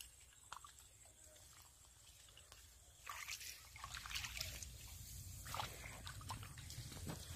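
Water sloshing and splashing as feet and hands move through shallow muddy water, quiet at first, then irregular splashes from about three seconds in.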